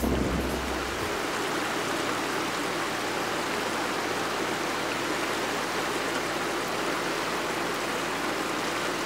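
Small alpine stream cascading down a steep rocky gully: a steady rush of water over stones.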